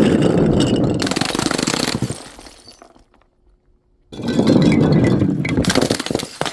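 Glass shattering in two loud crashes, each a dense burst of breaking glass and clinking shards lasting about two seconds. The first is already under way and dies away about two seconds in; the second starts about four seconds in.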